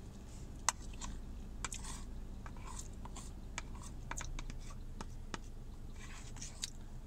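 Eating noises: chewing with scattered small mouth clicks and smacks, over a steady low hum.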